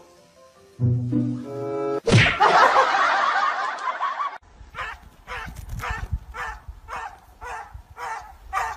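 A short musical phrase, then about two seconds of a canned laughter sound effect. After that comes a rhythmic train of short sounds, about two a second.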